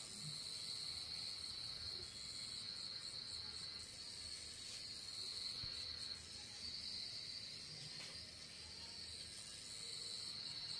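Pen-style rotary tattoo machine running with a steady high-pitched whine that swells and eases a little as the needle works pigment into skin.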